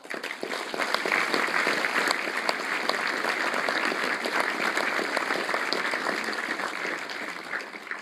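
A large audience applauding, swelling within the first second and fading out near the end.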